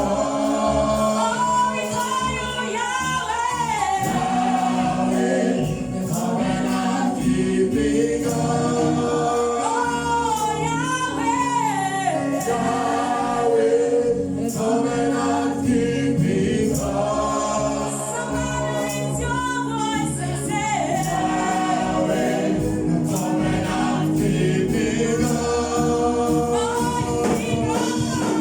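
Church choir singing a gospel song, several voices together over a full musical backing.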